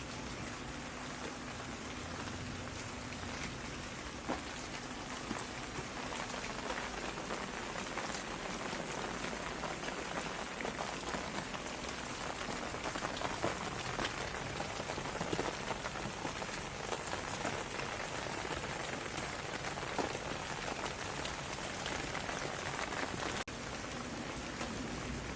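Steady rain falling on a hard surface, a dense even hiss dotted with separate close drop hits, with a momentary break in the sound near the end.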